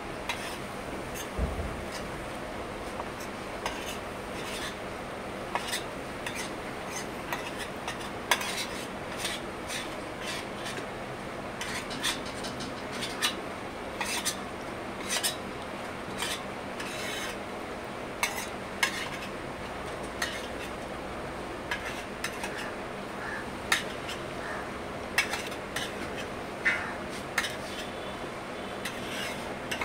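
Steel spoon scraping and clinking against a stainless steel thali plate as it scrapes up the last of the curry in one compartment, with irregular sharp clinks every second or two over continuous scraping.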